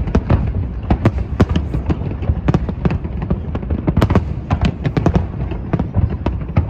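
A fireworks display: many shell bursts and crackling reports in quick succession, several a second, over a continuous deep rumble of booms.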